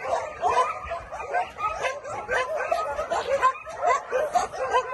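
Many shelter dogs barking and yelping at once, their short calls overlapping without a pause.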